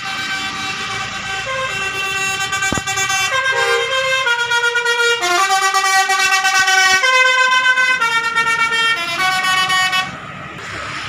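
Bus 'telolet' horn, a multi-tone musical horn, playing a tune of held notes with several tones at once. The pitch steps to a new note about every second, and the horn cuts off about ten seconds in.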